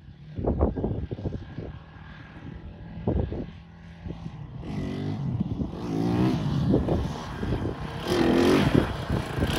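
Two trail motorbikes approaching, their engines rising and falling in pitch as they rev over a rough track, growing loud in the last second or two as the lead bike comes close. A few low thumps in the first three seconds.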